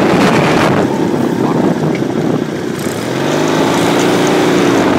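18 hp Briggs & Stratton go-kart engine running under way: loud and rough at first, easing off about a second in, then pulling again from about three seconds in with a rising, then steady tone.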